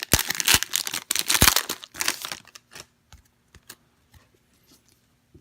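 A trading-card pack wrapper being torn open and crinkled, loud and crackly for about the first two and a half seconds, then a few faint ticks.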